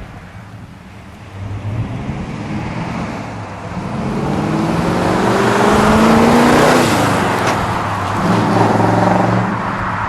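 A 1969 Dodge Charger R/T's 440 cubic-inch V8 accelerating past, its pitch climbing to a loud peak about six to seven seconds in. The pitch then drops and climbs again, like a shift on the four-speed manual.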